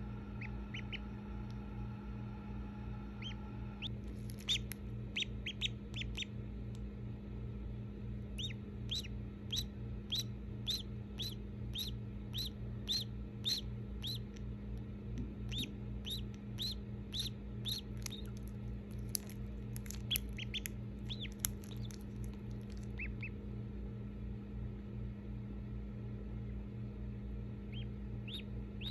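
Newly hatched duckling peeping: a long run of short, high, falling peeps, about two a second, that thins out after about twenty seconds, over a steady low hum.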